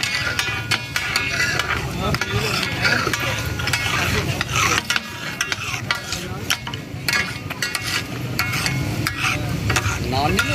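Several metal spatulas scraping and clattering fast on a large flat tawa griddle as dal is stirred and spread in hot oil, with the dal sizzling underneath.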